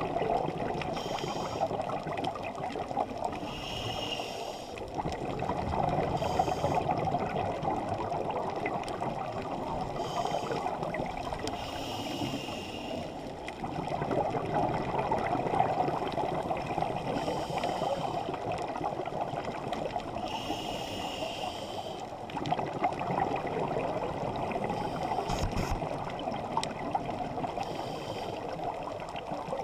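Scuba diver breathing through a regulator underwater. Each breath is a short high hiss on the inhale, then a longer bubbling rush as the exhaled air vents. There is a slow breath about every eight seconds.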